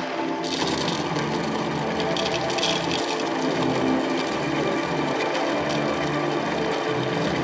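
Baratza Encore conical burr coffee grinder running, its motor whirring as the burrs grind coffee beans, a steady gritty grinding noise that grows fuller about half a second in.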